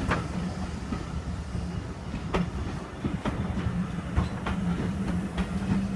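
Steam train rolling past over a steady low rumble, its wheels clicking over the rail joints every second or so.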